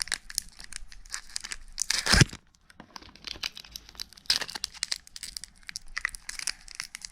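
Foil Pokémon booster pack wrapper crinkling and being torn open, with many short crackles and one loud rip about two seconds in; the pack is hard to tear.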